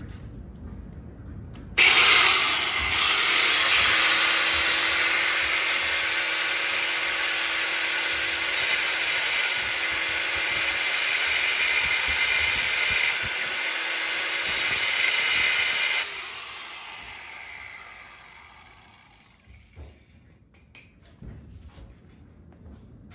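Angle grinder starting and cutting metal tabs off a dirt bike frame: a loud, steady, high-pitched screech, then the grinder switched off about sixteen seconds in and winding down.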